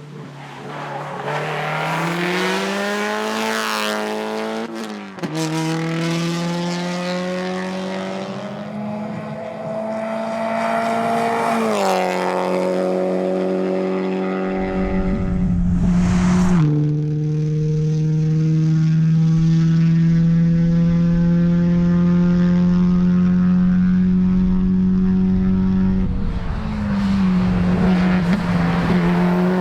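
Subaru WRX STI's turbocharged flat-four engine driven hard: the revs climb and drop sharply at gear changes several times, then hold steady for a long stretch before falling and rising again near the end.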